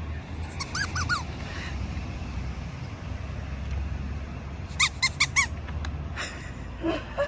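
Squeaky dog toy squeaking in quick runs: three short squeaks about a second in and four more around five seconds in, over a steady low rumble.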